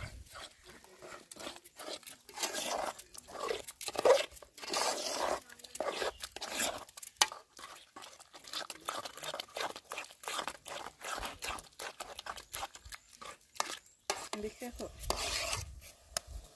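Metal spoon stirring and scraping through chopped leafy greens cooked with egg in an aluminium pot, in irregular short scrapes and clinks.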